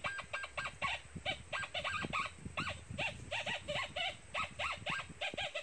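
An animal calling: a rapid run of short chirping notes, each rising and falling in pitch, several a second, over low rustling.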